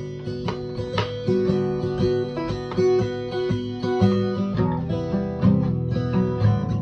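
Acoustic guitar music: plucked and strummed notes ringing one after another.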